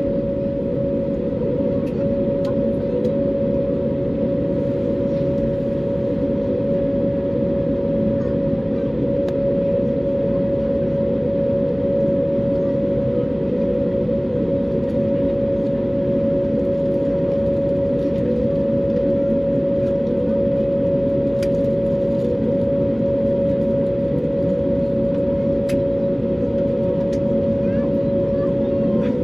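Steady cabin noise inside an Airbus A321neo taxiing in after landing: an even rumble from the idling engines and air conditioning, with a steady hum, and a few faint clicks.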